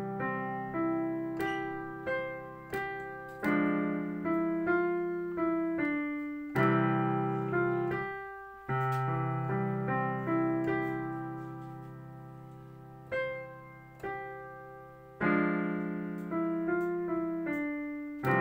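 Digital piano being played in a slow piece: struck chords with low bass notes held and fading under a melody, with a brief break about eight and a half seconds in.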